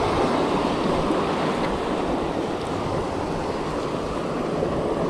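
Small waves breaking and washing up on a sandy beach: a steady rushing noise.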